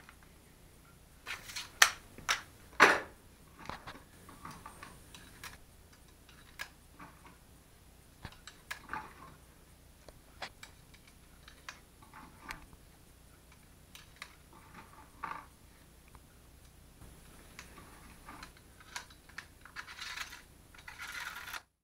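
Sharp metallic clicks and clacks of guns being handled and loaded, with a few loud clacks about two to three seconds in and scattered softer clicks after. A rustle comes near the end.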